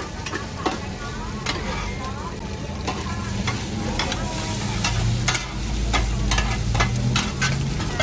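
Metal spatulas clinking and scraping against a large flat wok at irregular intervals, over the steady sizzle of egg and batter frying in oil.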